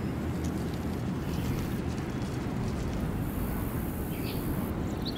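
Steady low outdoor ambient noise, with a couple of faint high chirps near the end.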